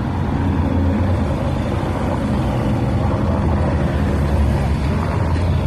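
Police motorcycles and escort cars driving past close by, with steady engine and road noise and a strong low rumble throughout.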